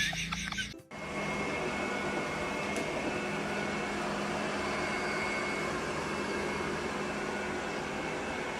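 A steady machine hum with a faint high whine, starting after a sudden cut about a second in; it is preceded by the loud tail end of a different sound.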